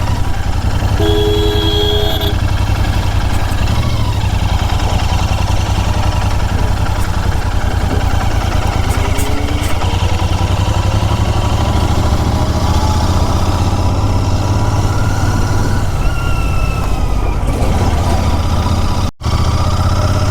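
Royal Enfield Continental GT 650's parallel-twin engine running steadily, its exhaust note heard from the bike. A vehicle horn sounds for about a second, about a second in, and the sound drops out briefly near the end.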